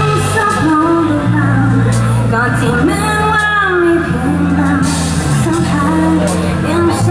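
Live pop band playing, with a woman singing lead at a microphone over keyboard, electric guitar and a bass line of held notes.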